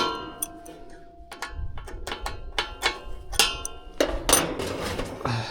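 Irregular metallic clicks and clinks, several of them ringing briefly, from tools and parts being handled on the package unit's sheet-metal housing.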